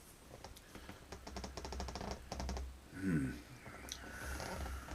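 Computer keyboard being typed on: quick runs of light clicks through the first half, with a brief murmur of a voice about three seconds in.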